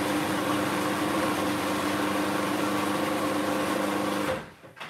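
Electric jug blender running at a steady, constant pitch, whizzing a thin garlic, vinegar, chilli and oil marinade, then switched off and cutting out near the end.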